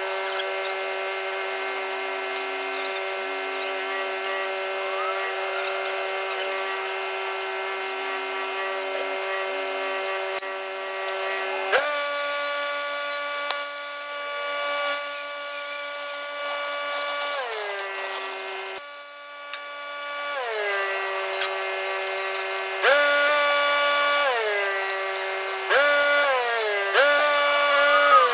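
Electric power-tool motor running with a steady high whine that is repeatedly switched on and off. Several times it slows and sags in pitch or winds down, then starts again sharply.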